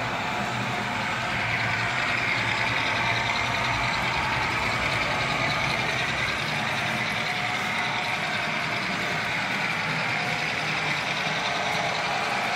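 OO gauge model diesel locomotive running along the track with a steady mechanical running noise.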